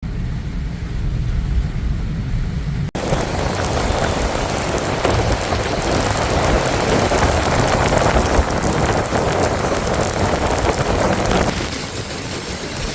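Heavy rain pouring down in a dense, steady hiss with a low rumble beneath it. There is a brief drop-out about three seconds in; after it the rain is louder and fuller, easing slightly near the end.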